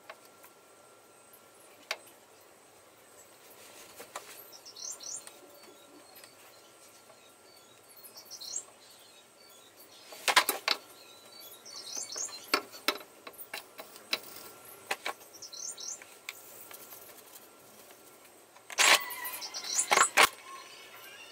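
Short bird chirps every few seconds over scattered clicks and clatter from handling an oil suction pump hose. There is a louder burst of clatter about halfway through, and another near the end, as the hose is drawn out of the transfer case fill hole.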